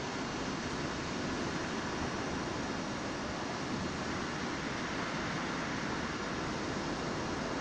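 Steady, even rushing noise with no pitch, rhythm or breaks.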